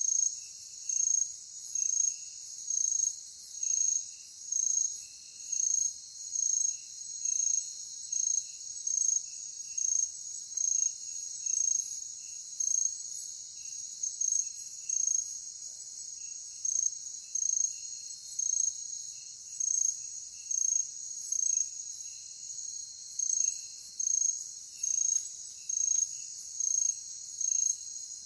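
Night-time insect chorus: a steady high-pitched insect drone with one loud, sharp chirp about once a second, over fainter, lower chirps that come irregularly.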